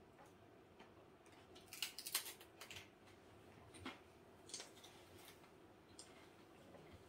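Light clicks and taps of game cards and pieces handled on a tabletop: a quick cluster about two seconds in, then a few single ticks.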